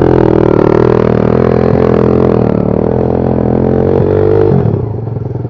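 Two-stroke Chinese dirt bike engine held at high revs, then falling away about four and a half seconds in. The bike is bogged down and not moving forward.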